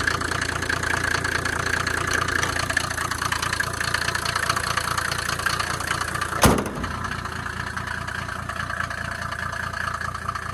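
Mercedes G W460 300 TD turbodiesel engine idling steadily. About six and a half seconds in, the bonnet is shut with a single loud slam, and the idle sounds a little quieter after it.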